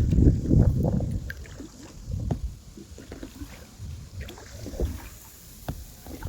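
Small boat being worked through the water: stroke splashes and scattered light knocks against the hull. Gusty wind buffets the microphone for the first second or so, then eases.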